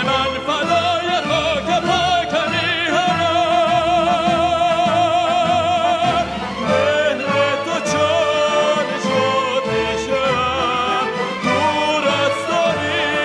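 A man singing in an operatic style over instrumental backing, holding a long note with wide vibrato in the middle.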